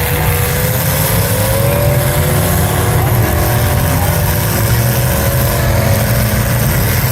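Engines of full-size demolition derby cars running and revving together, a loud steady rumble with one engine's pitch rising and falling.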